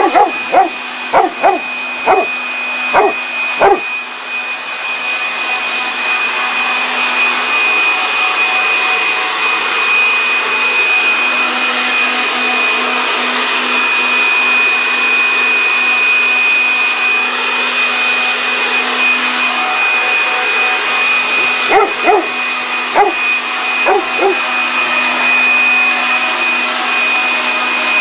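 Corded electric leaf blower running steadily, a constant high-pitched whine over a low hum, as it blows a wet dog's fur dry. Short dog barks break in several times in the first four seconds and a few more times about 22 to 24 seconds in.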